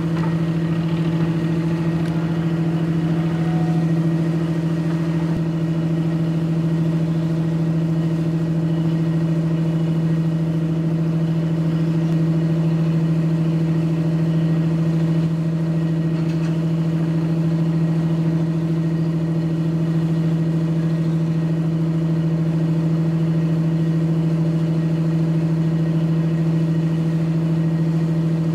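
An engine running at a steady idle: a constant low hum that does not change in pitch.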